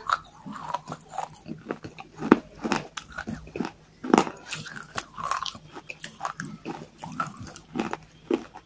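Close-miked biting and chewing of baked clay: irregular sharp crunches, several a second, with the loudest bites about two and four seconds in.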